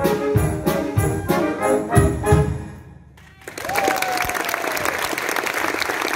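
Wind band of saxophones, clarinets, brass and drum kit playing the last bars of a piece over a steady drum beat, the music ending about three seconds in. After a short pause the audience breaks into applause, with one whistle that falls slightly in pitch.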